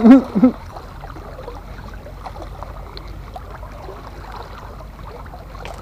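A man's short, loud shout right at the start, then a steady background of wind and sea water lapping against the breakwater rocks.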